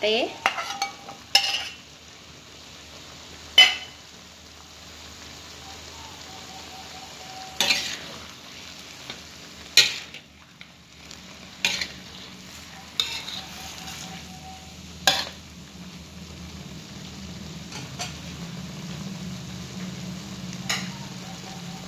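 A spatula scraping and knocking against a wok in irregular strokes while a stir-fry is turned over, over a steady sizzle of frying.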